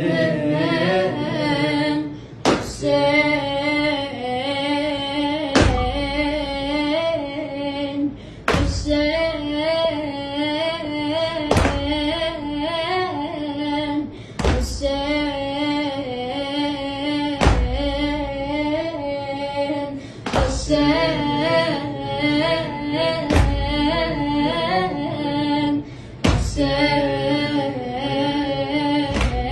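A boy's voice singing a Shia lament for Hussein (latmiya), with no instruments. A loud hand slap on the chest lands in time about every three seconds, the latm beating that keeps the lament's rhythm.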